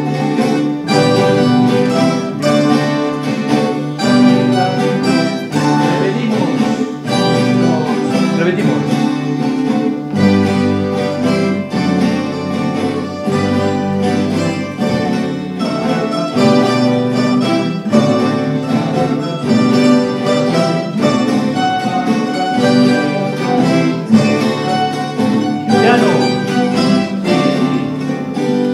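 A student estudiantina of Spanish guitars and bandolas playing a piece together, strummed chords under a plucked melody in a steady rhythm.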